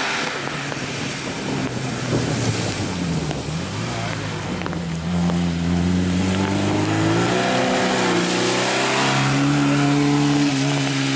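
Autobianchi A112 Abarth rally car's four-cylinder engine revving hard through a hairpin. The pitch dips about three seconds in, then climbs from about five seconds as the car accelerates away, with a brief drop near eight seconds and a higher note near the end.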